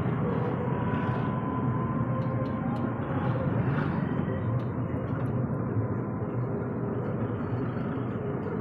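Rickshaw riding along a busy street, heard from the passenger seat: steady motor and road noise with the rumble of surrounding traffic, and a faint steady whine for a couple of seconds about a second in.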